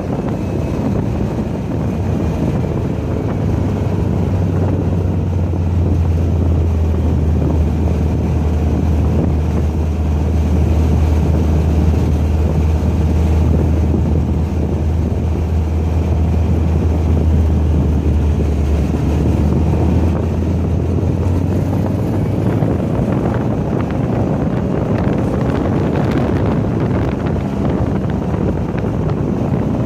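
Volkswagen car engine running steadily at speed on a race track, with wind buffeting the microphone. A strong low drone holds from a few seconds in until a little after two-thirds of the way through, then eases back.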